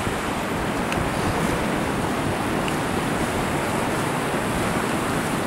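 Small mountain stream rushing steadily over rocks.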